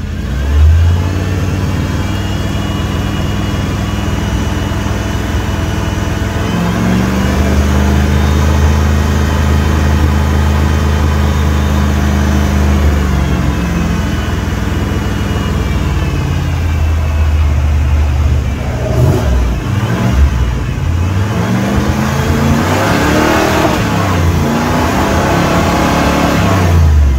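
Big-block V8 of a 1994 Chevy 3500 HD tow truck running and being revved under way. The revs climb about six seconds in, hold, and drop back a few seconds later. Near the end they rise and fall several times in quick succession.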